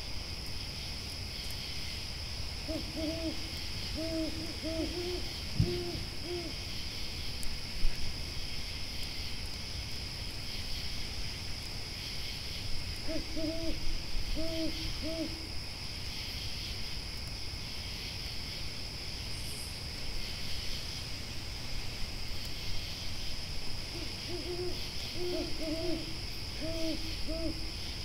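An owl hooting in three runs of short, quick hoots, a few seconds each, spaced through the scene. Under it runs a steady high chirring of grasshoppers and the low crackle of a campfire, with two sharp pops from the fire in the first several seconds.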